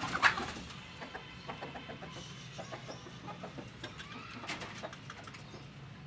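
Chickens clucking as they come out of their coop, with one loud sharp sound just after the start and scattered light clicks throughout.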